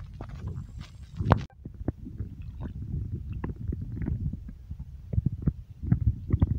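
Low rumble of wind buffeting a phone microphone, with small water splashes and handling knocks as a peacock bass is held at the surface by its lip. There is a sharp knock about a second in.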